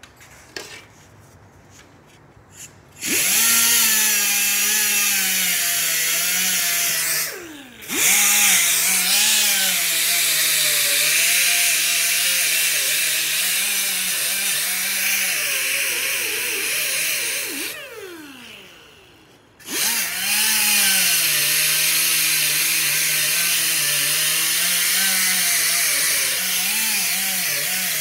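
Air-powered die grinder spinning a wheel against a metal bicycle fender, its pitch sagging and wavering as it is pressed into the metal, over a steady hiss. It starts about three seconds in, cuts out briefly and restarts around seven seconds, winds down near eighteen seconds and starts up again a moment later.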